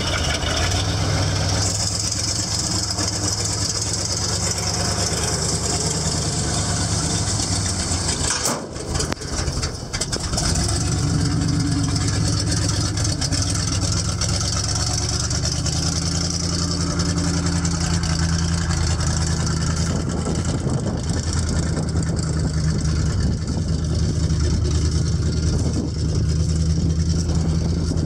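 GMC 6500 grain truck's engine idling steadily, with a brief drop in level about a third of the way in before it runs on evenly.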